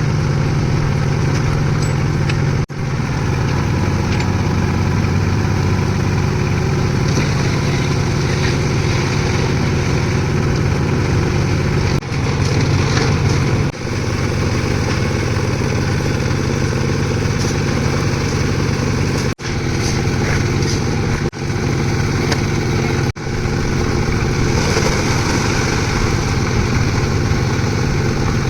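Concrete mixer's engine running steadily at a constant speed, broken by a few brief sudden dropouts.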